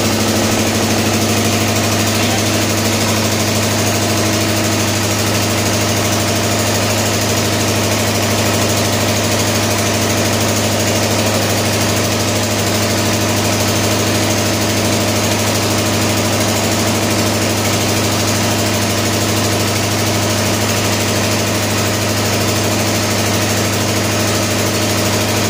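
Four-stroke single-cylinder diesel engine running at a steady speed on a test rig: a constant low hum with a stack of steady tones above it, unchanging throughout.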